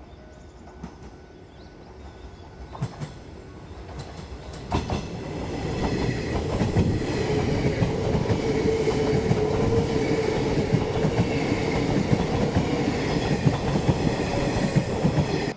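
A 381 series limited express electric train passing through a station at speed. The sound builds from a distant rumble with a few sharp clicks into loud, continuous wheel clatter and rumble with a steady hum. It cuts off suddenly at the end.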